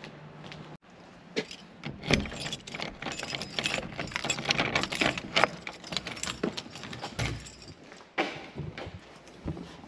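A bunch of keys jangling and clicking as a key is worked in a brass doorknob lock, in a dense run of small metallic jingles and clicks. A few separate knocks follow near the end.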